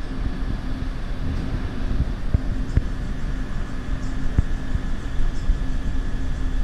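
City street ambience: a steady low rumble of distant traffic with a faint constant hum, and a few brief soft knocks in the middle.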